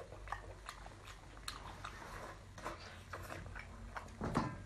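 Close-up mouth sounds of someone chewing braised octopus: scattered wet smacks and clicks, with one louder, deeper smack near the end.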